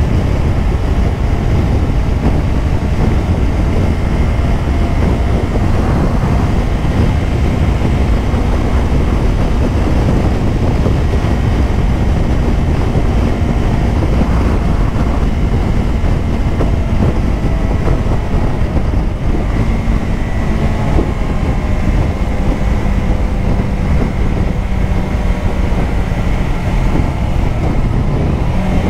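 Motorcycle riding at speed: a steady rush of wind on the microphone over the engine's running note, which shifts slightly about two-thirds of the way through.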